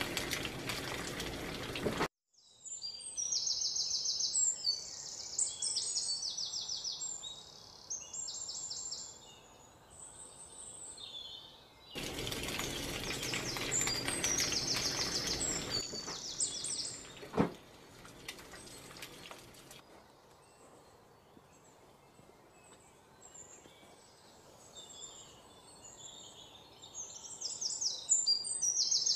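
Small birds chirping and trilling in quick bursts throughout. Food sizzling as it fries in oil in a pan, heard for the first two seconds and again from about twelve to sixteen seconds in, with a single sharp knock a little after that.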